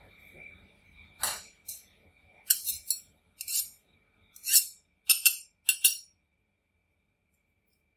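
Two steel ice cream roll spatulas struck and scraped against each other, a string of about eight sharp metallic clinks that stops about two seconds before the end.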